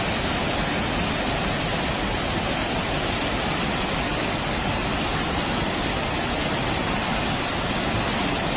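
Flash-flood water rushing and churning down a street in a fast torrent, a steady wash of water noise.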